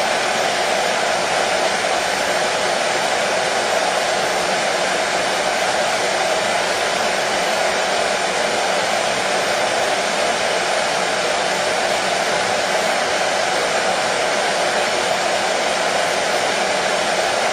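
Hair dryer running steadily: a constant, even rush with no change in pitch or loudness.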